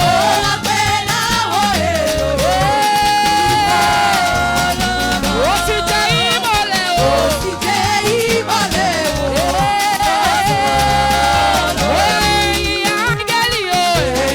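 Live church praise-band music with a steady, repeating bass line under a sliding, bending melody line.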